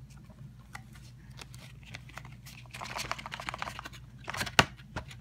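Cardboard slipcover being slid off a plastic Blu-ray case: scattered light clicks, a crackly rustle in the middle, and a sharp click of the plastic case near the end.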